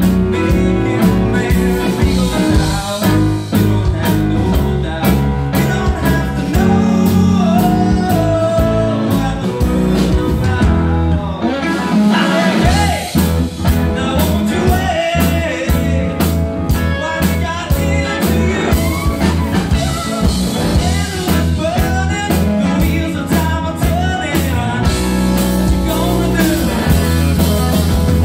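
Live blues-rock band playing loud: electric guitar, bass guitar and drum kit, with wavering bent notes over the beat. The low end drops out for about a second near the middle before the full band comes back in.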